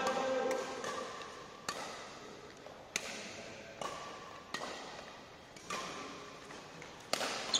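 Badminton rackets striking a shuttlecock during a doubles rally: about seven sharp, short smacks, roughly one a second.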